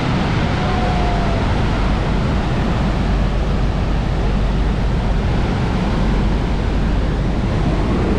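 Steady roar of Niagara Falls crashing onto the boulders at its base, with spray and choppy water. Wind rumbles on the microphone.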